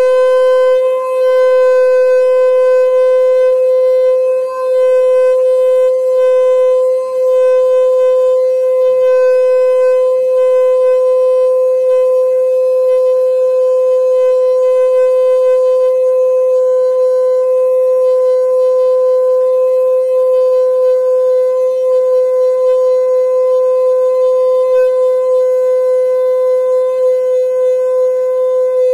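Conch shell (shankh) blown in one long unbroken note, held at a steady pitch without a break for nearly half a minute, as in shankh naad.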